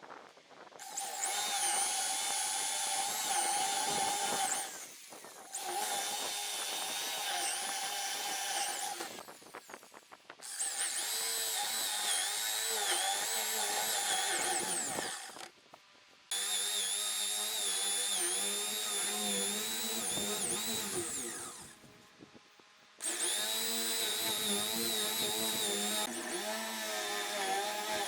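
Handheld electric power tool working wood in five runs of several seconds each, with short pauses between, its motor whine wavering in pitch as it works.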